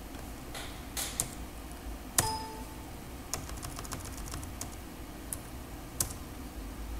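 Computer keyboard keystrokes, a scattered run of clicks with a quick cluster in the middle, as a number is typed into a field. A short electronic ding sounds once about two seconds in.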